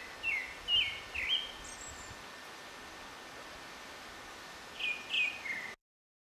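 Short chirping calls, each sliding down in pitch, over a steady hiss: four in quick succession, then three more about five seconds in. The sound cuts off suddenly near the end.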